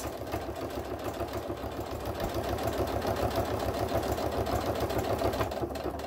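Electric sewing machine running at a steady speed, its needle stitching quickly and evenly through sew-on Velcro tape and fabric, then stopping near the end.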